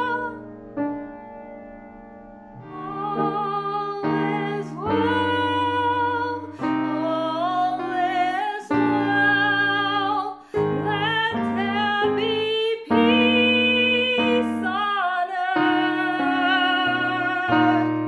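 Solo woman's voice singing a slow, legato ballad melody with piano accompaniment. The piano plays softly alone at first, and the voice comes in about three seconds in.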